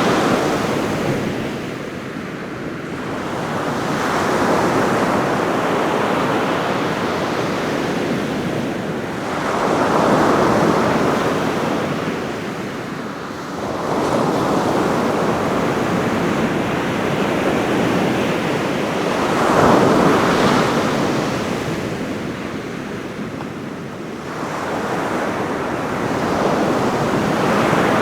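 Ocean surf breaking on a beach, the waves surging and easing every few seconds into a continuous rushing wash, with some wind on the microphone.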